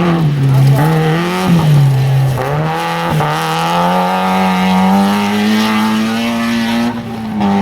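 Off-road rally vehicle's engine working through a gravel stage: the revs drop twice in the first two seconds as it slows for a corner, then climb steadily over several seconds as it accelerates away.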